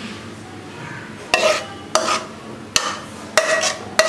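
Metal spoon scraping thick egg curry gravy out of a tilted kadai into a serving bowl: five sharp clinks of the spoon on the pan, each followed by a short wet scrape and slop of gravy.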